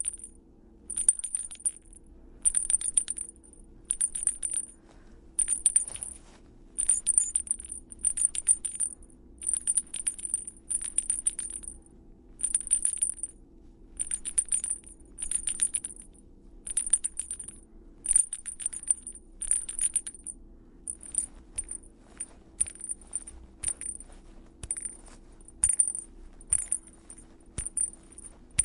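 Toy bell shaken in short bursts of high, rattling jingles, roughly one a second. In the last third the shakes become shorter and quicker.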